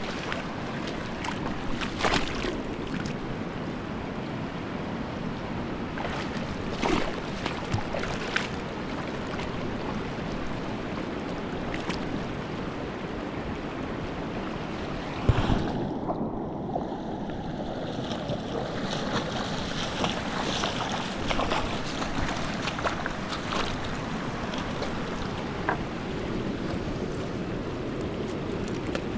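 Steady rush of fast-flowing river water, with a few light knocks and one louder thump about fifteen seconds in.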